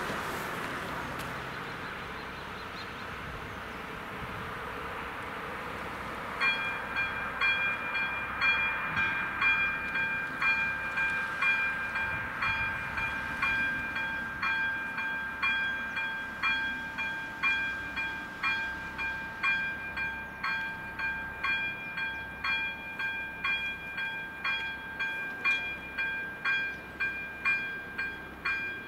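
A car passes over the crossing, fading away in the first few seconds. About six seconds in, the Czech level crossing's electronic warning bell starts and rings on in an even beat of about one and a half strokes a second, signalling that a train is approaching and the crossing is closing.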